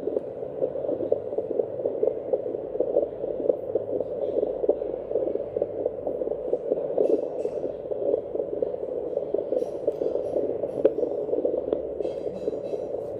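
Fetal heartbeat picked up by a Doppler probe and played through its speaker: a steady, rapidly pulsing whoosh.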